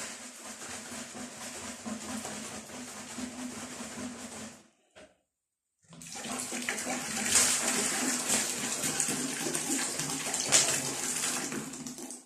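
Water pouring from upturned plastic bottles into a plastic bucket, a steady rushing splash in two long pours broken by a short silence about five seconds in. The water is being measured in to dilute a primer at two parts water to one.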